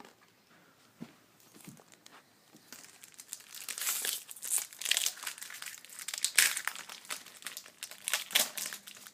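Crinkling foil wrapper of a baseball card pack being torn open and handled. It starts faint and turns into dense, irregular crackling from about three seconds in.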